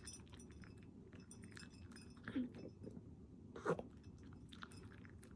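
A maltipoo at its food bowl: small clinks and chewing, then two short, louder sounds about halfway through, a second or so apart. These are the dog's burps after its meal.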